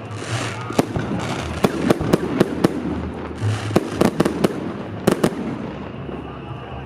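Fireworks salute going off: a rapid series of sharp bangs in two clusters over a rumbling haze, thinning out in the last second or so.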